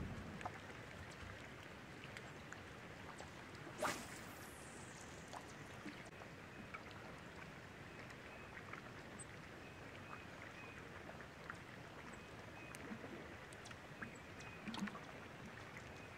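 Quiet open-water ambience with a fishing cast about four seconds in: a sharp swish and a high whir of line off the reel that falls away in pitch. After it come faint scattered clicks as the lure is reeled back.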